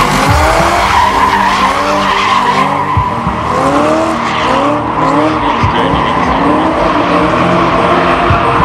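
A car drifting on asphalt: its engine revs up and falls back again and again, about once a second, as the throttle is worked through the slide. The tyres skid throughout.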